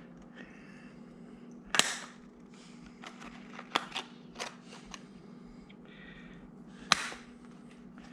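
Handheld hole punch being squeezed on a vinyl vertical-blind slat: two loud sharp snaps about five seconds apart, with smaller clicks and handling between them. A faint steady hum lies underneath.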